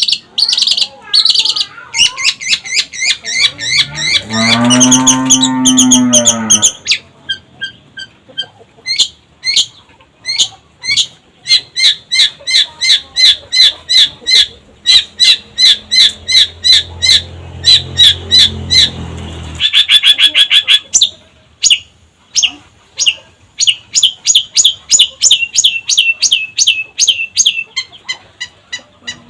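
Long-tailed shrike (cendet) singing: long runs of sharp, high repeated notes, about four a second. A low, drawn-out note lasts about two seconds near the start, and a low hum sits under the song in the middle.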